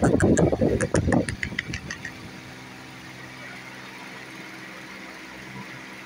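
Loud rustling and knocking for about the first second and a half, with a run of quick light clicks that fades out about two seconds in. After that, only a steady low mechanical hum, like a motor running in the background.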